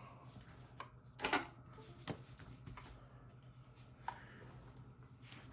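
A few scattered short clicks and knocks, the loudest a brief clatter about a second in, over a low steady hum.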